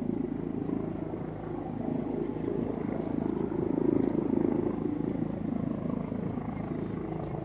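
Police helicopter overhead: a steady drone of rotor and engine that swells slightly about halfway through.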